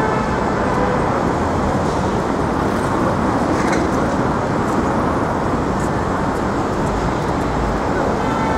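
Steady roar of city street traffic: passing cars and buses mixed into a continuous rumble.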